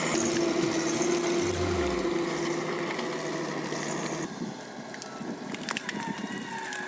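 Heavy machinery engine running steadily, with a steady whine over the first few seconds. About four seconds in, the sound drops and changes to a quieter machine noise with scattered clicks and knocks.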